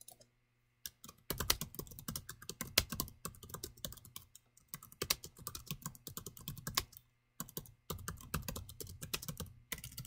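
Typing on a computer keyboard: quick runs of keystrokes, three runs separated by short pauses.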